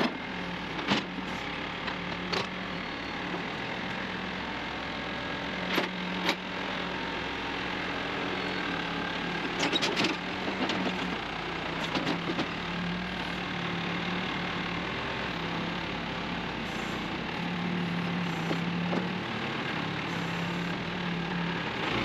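Terex 760 backhoe loader's diesel engine running steadily as the machine drives down a trailer's steel ramps, with several sharp metal clanks along the way.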